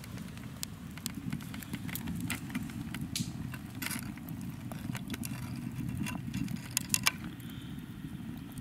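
Wood fire crackling in a freshly lit Dakota fire pit, with scattered sharp pops, two of the loudest about seven seconds in, over a steady low rumble.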